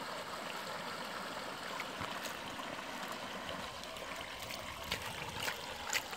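Shallow creek water running steadily, with a few short splashes and drips as a hand swishes water through a plastic gold pan of sediment.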